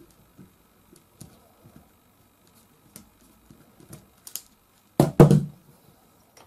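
Faint small clicks of a screwdriver turning a T10 Torx screw out of an air rifle's breech block, then a couple of loud knocks about five seconds in as the screwdriver is set down and the block is handled.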